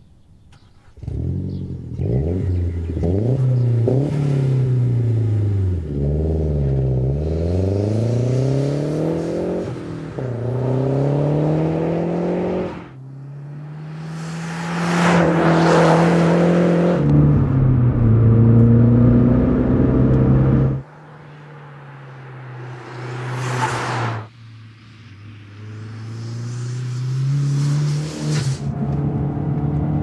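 Turbocharged 2.3-litre four-cylinder of a second-generation Mazdaspeed3 running through a 3-inch stainless steel cat-back exhaust, driven hard. Its pitch climbs and drops several times as it accelerates and lifts off, with one loud pass about halfway through.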